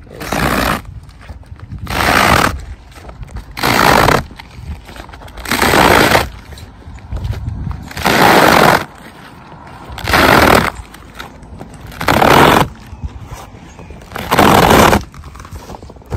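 Glued-down rubber roofing membrane being ripped up off the roof decking in strips, a loud tearing rip with each pull as it comes away from the very sticky adhesive, about eight pulls, one every two seconds or so.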